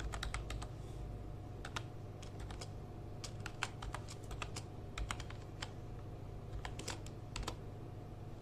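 Computer keyboard keys clicking in an irregular run as a short command is typed and entered, over a faint steady low hum; the clicks stop about a second before the end.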